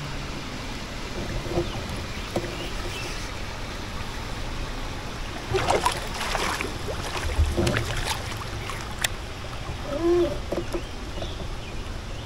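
Water lapping and moving around a kayak on a river, with a cluster of splashes and knocks against the boat about halfway through and a short squeak near the end.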